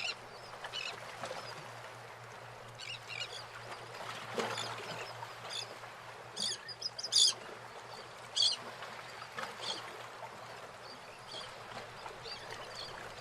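Birds chirping: scattered short high calls, a few louder ones in the middle, over a faint steady low hum.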